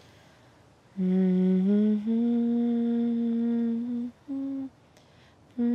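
A woman humming a slow, wordless melody. It starts about a second in, holds one long note, and breaks briefly between phrases.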